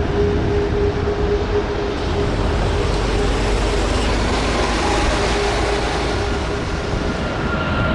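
Airbus A340-600's four Rolls-Royce Trent 500 jet engines running: a steady loud roar with a held tone in the first half and a higher tone coming in near the end.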